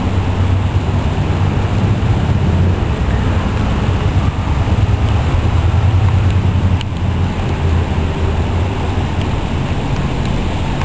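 River water rushing steadily, a loud even wash with a deep rumble.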